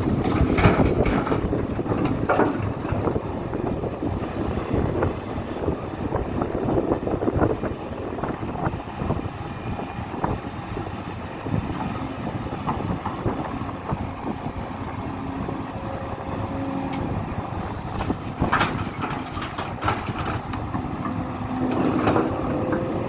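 Hidromek 500LC hydraulic excavator at work: its diesel engine runs under load with scattered knocks and clatter throughout, and a steady whine comes and goes in the second half.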